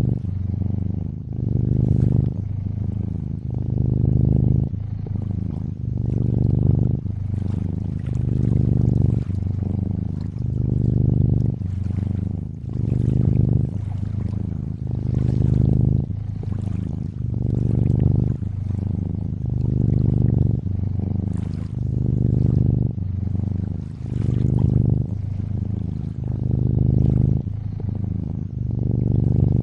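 A cat purring steadily in a low rumble that swells and eases about every two seconds as it breathes in and out. Gentle lapping and trickling water runs underneath.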